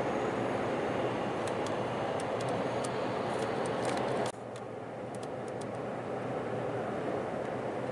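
Tanker truck cab on the move: steady engine and road noise, with a row of light ticks from the turn-signal indicator as the truck takes the exit. A little over four seconds in the noise drops suddenly and runs on quieter.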